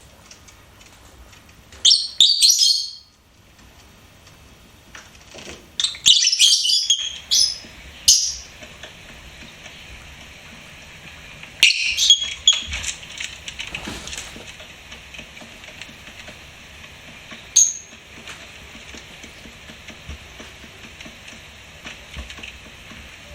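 Lovebirds chirping in three short bursts of rapid, shrill chirps, then a single chirp later on, with a faint steady hiss between.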